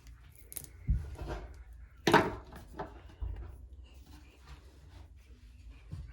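Small hard objects handled and set down: a few short clicks and knocks, the loudest about two seconds in, with soft rubbing between them, typical of miniature plastic toy pieces being moved about.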